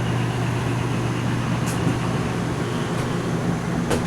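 Steady low hum of an RV air conditioner running, with a couple of faint ticks.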